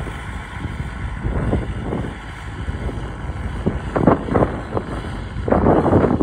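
Farm tractor's engine running steadily as it pulls a cultivator through the soil, heard over wind buffeting the microphone in irregular gusts, the strongest about four seconds in and near the end.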